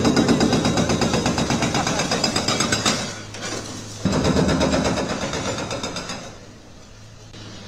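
A multi-storey concrete building collapsing: a loud, dense crashing clatter of breaking concrete and falling rubble. It is heard twice, the first stopping about three seconds in and the second starting about a second later and fading out about two seconds after that. A low steady hum runs underneath.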